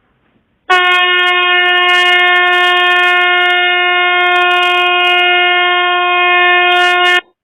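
Phone anti-theft alarm app sounding its motion-sensor alarm, set off by the phone being moved: a loud, steady horn-like tone that starts about a second in and cuts off suddenly near the end.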